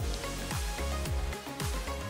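Background music with a steady beat of deep drum hits, about two a second.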